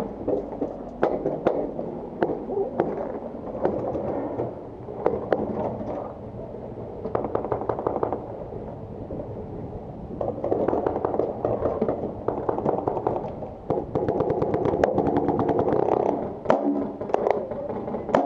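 Paintball markers firing, with rapid strings of shots and scattered single pops throughout, several guns going at once.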